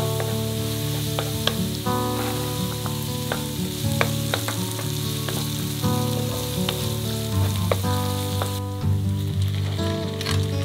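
Minced garlic and then garlic scapes sizzling in plenty of hot olive oil in a nonstick wok, stirred with a wooden spatula. This is the frying that brings out the garlic's aroma. The high sizzle drops off sharply near the end.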